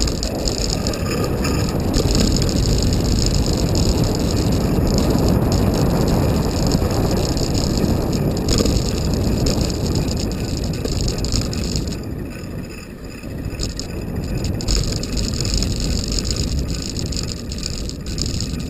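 Wind rushing over the microphone and the road noise of a bicycle ridden on wet tarmac, briefly quieter about two-thirds of the way through.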